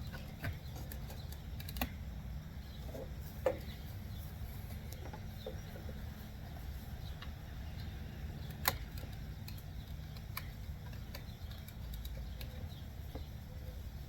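Scattered small clicks and rattles of hands working a wiring harness and its electrical connector loose behind a car door trim panel, a few sharp ticks standing out, over a steady low hum.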